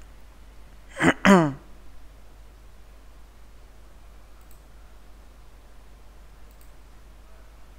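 A man's short vocal sound, not words, in two quick parts falling in pitch, about a second in. Later come a couple of faint computer-mouse clicks.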